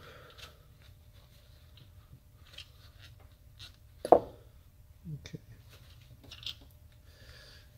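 Shop rag rubbing and wiping around the valve guides of an LS cylinder head: faint scattered rustles and small clicks, with one short louder sound about four seconds in.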